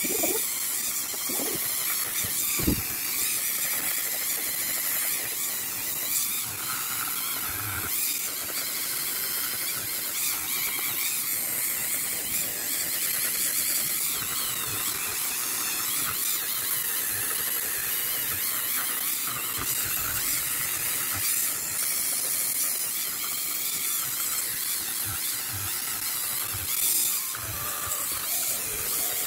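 Handheld electric rotary tool running at high speed with a steady high whine as its bit is worked over dry bonsai deadwood.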